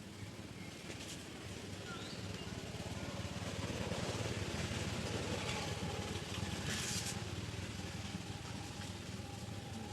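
A motor vehicle passing, its engine sound swelling over the first few seconds and easing off again, with a brief rustle about seven seconds in.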